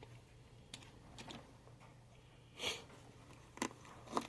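Faint handling noises: a soft rustle about two and a half seconds in and a few light clicks as hand tools are moved in and out of a tool pouch.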